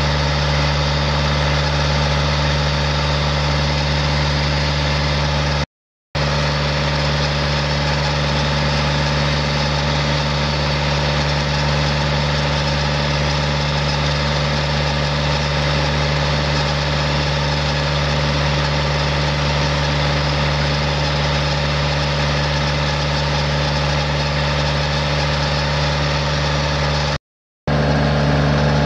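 Diesel engine idling steadily, with two split-second breaks in the sound.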